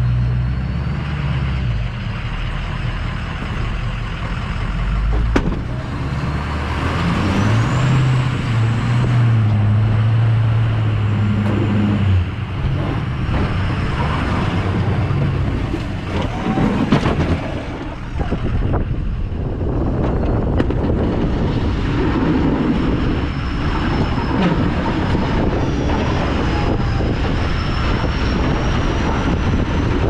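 Ford F-250's 6.0 Powerstroke V8 diesel engine working as the truck plows snow, its pitch rising about seven seconds in and easing off around twelve seconds.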